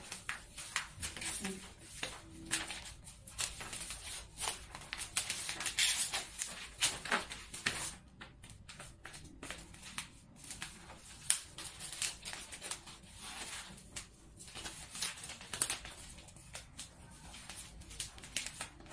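Sheets of pleated paper being handled and pinched into fan shapes: irregular crinkling and rustling, with many short crisp strokes.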